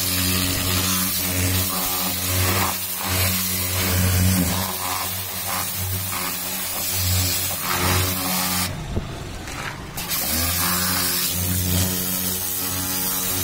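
Pressure washer running: a steady motor-and-pump hum under the hiss of the water jet hitting the car's side. About nine seconds in it cuts out for a second or so, then starts again and winds back up.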